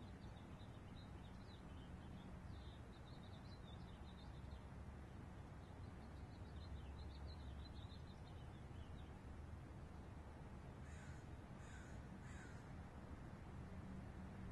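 Faint birdsong: small birds twittering on and off for the first nine seconds or so, then three short calls in quick succession near the end, over a low steady background hum.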